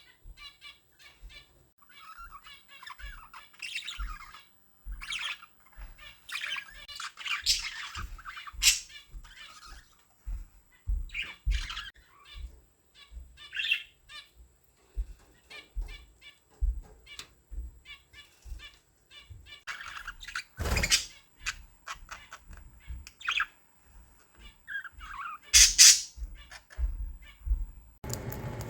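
Budgerigars chattering, with rapid chirps and squawks, soft knocks underneath, and a couple of louder harsh bursts about two-thirds of the way through and near the end.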